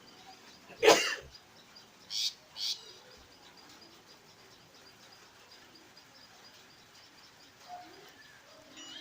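Birds chirping faintly in the background. About a second in there is one short, loud, sharp noise, and two short high chirps follow soon after.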